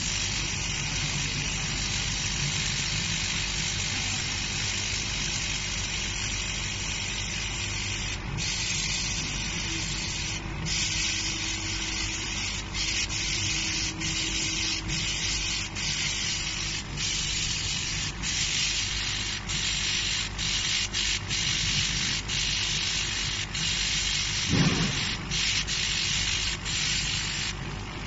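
CO2 laser engraver working on a glass bottle turned on a rotary attachment: a steady high hiss broken by brief gaps, which come more often in the second half, over a low machine hum. A short low whir comes near the end.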